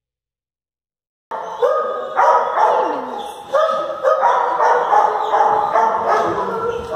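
Silence for about a second, then a group of dogs starts barking and yipping abruptly, several voices overlapping.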